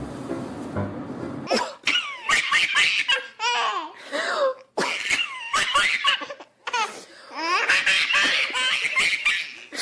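Baby laughing hard in three long runs of belly laughs. Background music cuts off about a second and a half in, just before the laughter starts.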